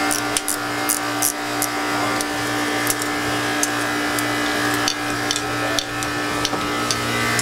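Steady machinery hum with several fixed tones and a low pulsing drone, from other machinery running in the boat's engine room. Over it come scattered light clicks and clinks as the discharge hose and elbow fitting are worked off the seawater pump by hand.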